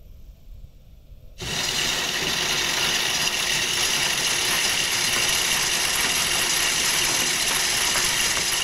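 Hunting feeder's spinner motor kicking on suddenly about a second and a half in and running steadily, flinging out corn in a dense rattle: a test cycle of the feeder.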